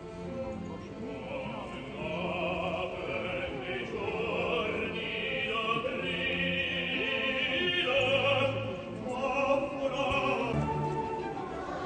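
Operatic singing with a wavering vibrato over classical orchestral music, from a live stage performance.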